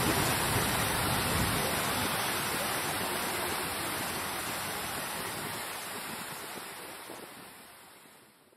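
Water from a large fountain splashing into its basin, an even rushing hiss, fading out steadily over the last few seconds to silence.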